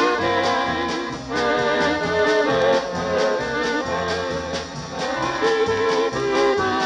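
Polka band playing an instrumental passage: brass carrying the tune over an alternating oom-pah bass and a steady beat.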